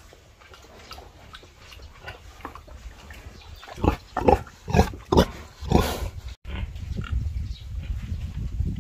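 Domestic pig feeding at a trough: faint snuffling and chewing clicks, then about five loud, short grunts between about four and six seconds in. A low rumble follows near the end.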